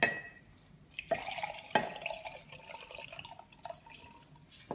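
Milk being poured from a glass measuring cup into a ceramic mug, trickling and splashing, with a couple of sharp clinks in the first two seconds.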